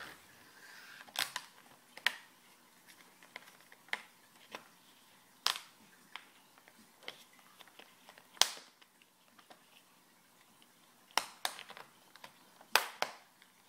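Plastic screen bezel of a Samsung NP300E5A laptop popping loose from its clips a little at a time as it is pried off with a plastic card. It makes sharp, separate clicks every second or so, the loudest about eight seconds in.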